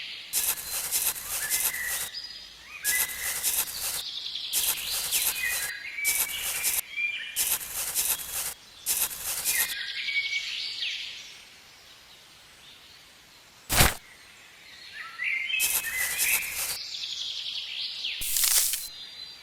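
Bird chirps coming in repeated bursts, each mixed with rapid clicking, with a lull in the middle broken by a single sharp click.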